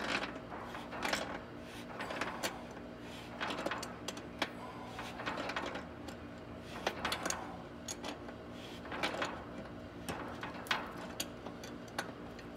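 Metal pliers jaws clicking and scraping on a .750 hardline coax connector's back nut as it is tightened in repeated short strokes, about one small metallic click or creak a second.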